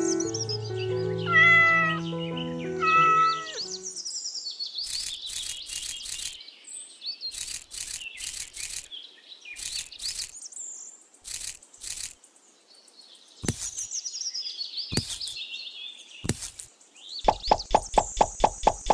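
Music for the first few seconds, then birds chirping in high, falling calls, mixed with sharp clicks and taps. Near the end comes a quick run of ticks, about six a second.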